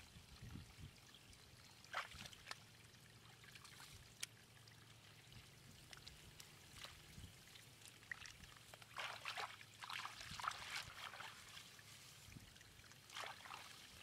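Faint trickle of shallow muddy water running down a mud channel into a basket fish trap. There are a few small wet splashes and pats from a hand working the mud, bunched together about two-thirds of the way through.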